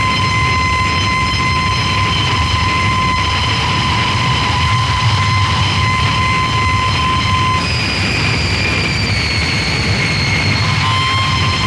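Harsh noise music: a loud, dense wall of distorted noise over a low rumble, with steady high whines on top. A little over halfway through, the whines change and slowly slide down in pitch, and another whine starts near the end.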